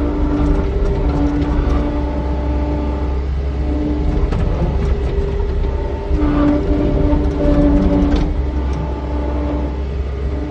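Skid steer running with a steady low rumble, and steady whining tones that come and go as the machine works.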